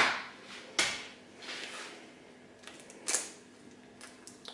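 A few sharp taps and clicks of an egg being cracked against the rim of a bowl, its shell then pulled open.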